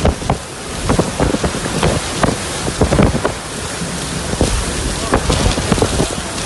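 Storm rain and strong wind buffeting the microphone, with many short, sharp taps scattered throughout.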